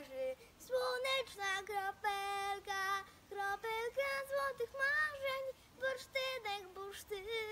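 A young girl singing a children's song solo, in short phrases with held notes and brief gaps between them.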